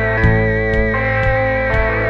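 Instrumental outro music: sustained chords with a wavering high tone over a steady beat of about two strokes a second.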